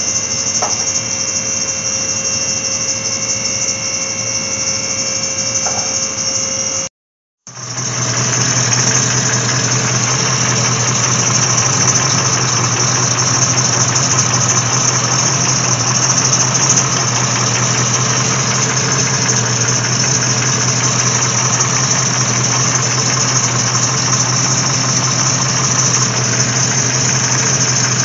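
A steady whirring hum with a fixed high tone for the first seven seconds, then a brief dropout. After it, a C4 Corvette's V8 idles steadily, left running so the repaired transmission lines can be checked for leaks.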